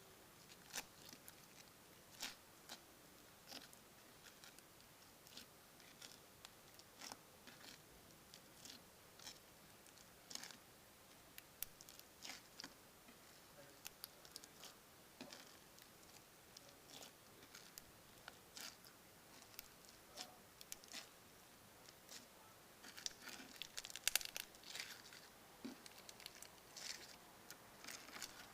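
Crunchy foam slime being pressed and squeezed by hand, giving scattered small crackles and pops, with a denser run of louder crackles near the end.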